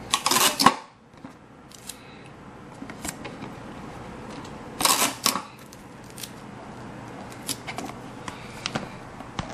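Hand-work noises from patching a hole in a paper-craft ship model: two short scraping rustles, one right at the start and one about halfway through, with scattered light clicks and taps in between.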